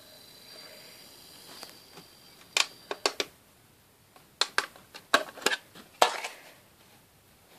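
Sharp plastic clicks and knocks from handling a CD and a portable CD boombox: three about two and a half seconds in, then a quicker cluster of them a second or so later.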